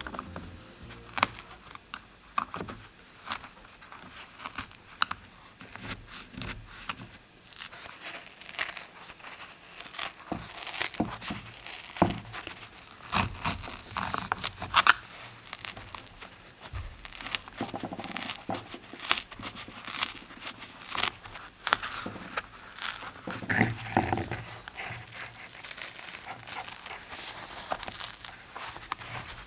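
Hand work on a Selle Italia Flite bicycle saddle: irregular rustling with many scattered sharp clicks and taps.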